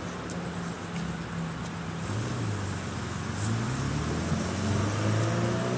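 A motor vehicle's engine running and speeding up, its pitch rising and getting a little louder from about two seconds in, over wind noise.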